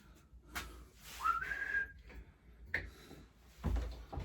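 A person whistles one short note that slides up and holds briefly, about a second in, among a few knocks and a low thump from handling tools and the mower.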